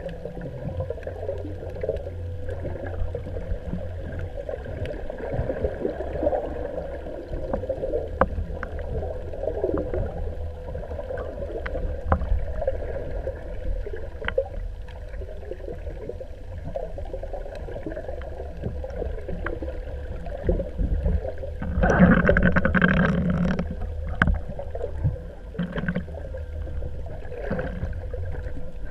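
Water lapping and gurgling against a small boat, over a steady low rumble. A louder burst of noise lasts about a second and a half, a little over 20 seconds in.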